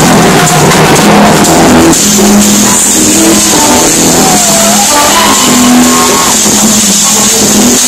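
Loud electronic dance music from a DJ set playing over a club sound system, with a steady low tone and a wavering melodic line in the middle.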